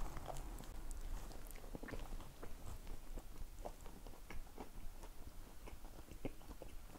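A person biting into a slice of toast and chewing it, with small irregular crunches.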